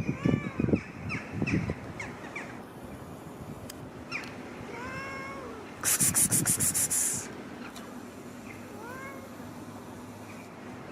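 Domestic cat meowing three times: drawn-out calls that rise and fall in pitch, spaced a few seconds apart. Between the second and third meow comes a short, loud burst of rapid high-pitched rattling pulses, the loudest sound here.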